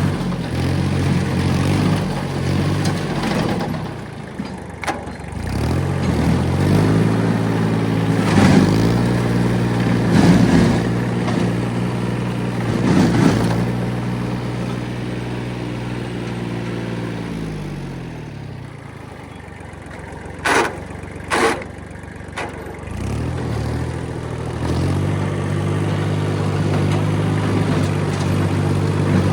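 Kubota diesel engine working, its speed rising and falling with the throttle: it drops to a low idle about two-thirds of the way through and speeds back up near the end. A few sharp knocks sound over it, two loud ones close together during the idle.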